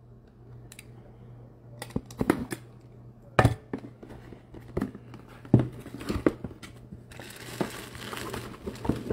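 A cardboard jersey box and its plastic wrapping being handled and opened: scattered knocks and taps with plastic crinkling, the crinkling thicker near the end, over a steady low hum.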